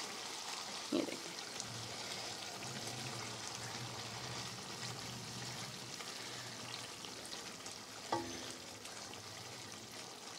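Chicken liver masala sizzling and bubbling in its oil in a frying pan, fried down (bhuna) and ready, with a spoon stirring it now and then.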